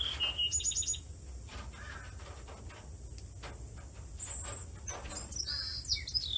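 Common marmosets calling in high, thin chirps: a falling whistle and a quick run of about six short notes at the start, then another group of whistled chirps about five seconds in, with faint ticks in between.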